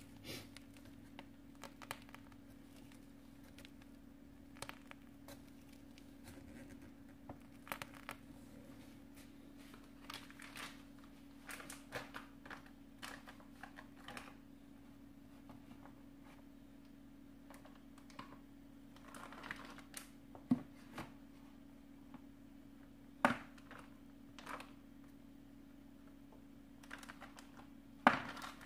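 Faint crinkling and rustling of a plastic piping bag being squeezed and handled while piping whipped-cream rosettes, with a few sharper knocks in the second half, over a steady low hum.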